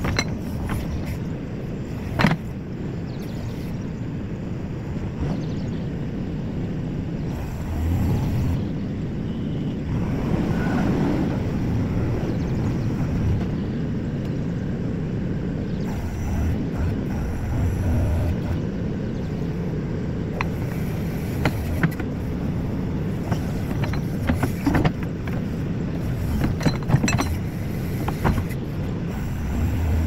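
JCB 4CX backhoe loader's diesel engine running steadily as the rear backhoe arm digs and shifts earth. A few sharp knocks from the bucket and arm stand out, the loudest about two seconds in and several more near the end.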